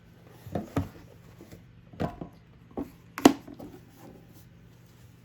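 Hands unpacking a boxed item: a few short knocks and rustles of packaging being handled, the loudest a sharp knock a little over three seconds in, over a faint steady hum.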